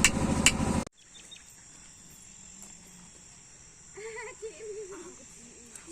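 A loud humming with sharp clicks cuts off abruptly about a second in. What follows is quiet outdoor background with a steady high-pitched cricket trill, and faint distant voices near the end.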